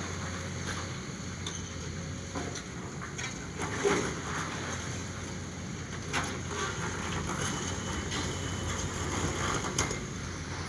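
Cat excavator's diesel engine running steadily while its demolition grapple tears into the building, with cracks and crashes of breaking debris, the loudest a little before halfway and others around six and ten seconds in.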